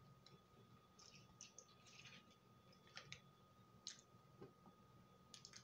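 Faint chewing and mouth sounds of someone eating a frosted cupcake: a handful of soft, wet clicks and smacks scattered through, very quiet overall.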